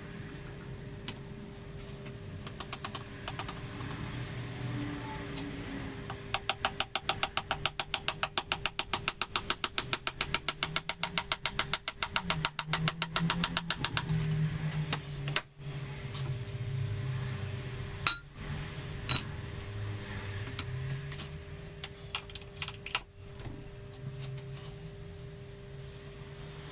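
Hand tools at work on an A-Series engine block while a piston is fitted: a run of rapid, even clicks, about six a second, for around eight seconds from about six seconds in, then a few single sharp knocks.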